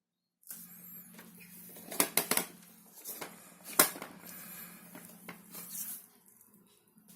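A small USB mini fan starts up about half a second in and runs with a steady low motor hum, while its hard plastic body is handled with several sharp clicks and knocks, a cluster about two seconds in and the loudest a little before four seconds.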